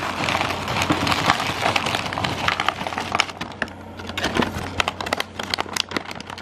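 Dry opal-bearing clay and rock chunks pouring from a bag into a plastic gold pan: a dense clatter and crackle of pieces landing and rattling together, thinning to scattered clicks in the second half.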